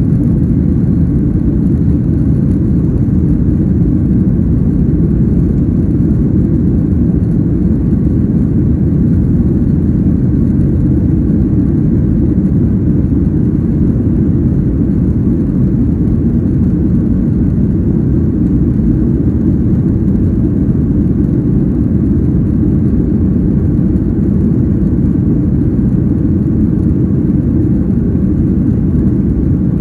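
Jet airliner cabin noise heard from a window seat over the wing: a steady, unbroken rumble of the engines and airflow as the plane climbs.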